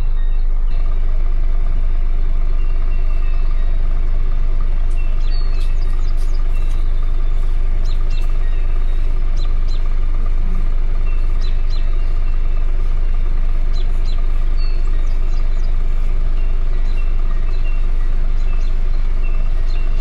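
A car engine running with a steady low rumble, heard from inside the vehicle, with small birds chirping outside.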